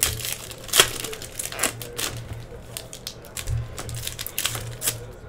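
Foil wrappers of Donruss football card packs crinkling and tearing as they are ripped open by hand, in quick irregular crackles with a sharp crackle just under a second in.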